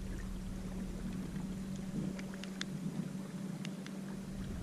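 Electric trolling motor on a fishing kayak running with a steady low hum, switched on right at the start, over light water noise and a few faint ticks.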